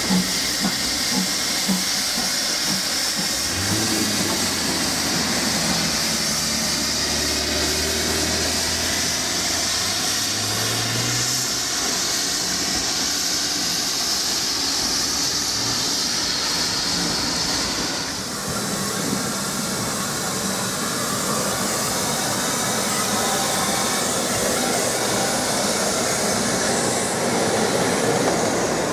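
Steam locomotive hauling a train of coaches: a few even exhaust beats at the start, then a steady hiss and rumble as the train runs past. About two-thirds of the way in, this changes to the steady hiss of steam from a standing pannier tank engine.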